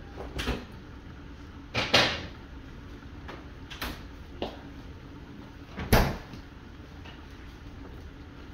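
Several sharp knocks and clunks in a kitchen, like cupboard doors shutting, the loudest about two seconds and six seconds in, over a steady low background noise.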